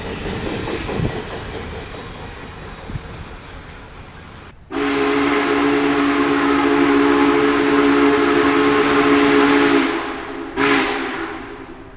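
Union Pacific 844 steam locomotive passing: the rushing run-by noise fades, then its chime whistle sounds one long, steady blast of several tones for about five seconds. A short blast follows.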